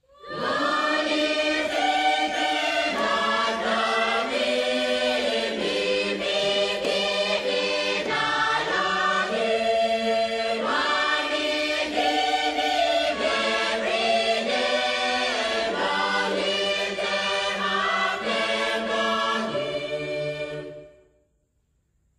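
Background music: a choir singing in long held chords, fading out a little before the end.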